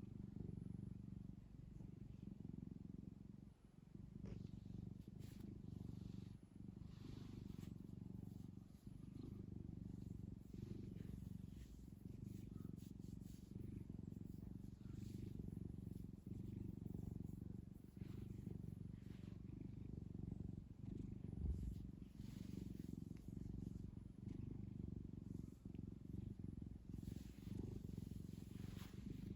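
Domestic cat purring steadily and close up, a low rumble that swells and dips every two to three seconds as it breathes in and out.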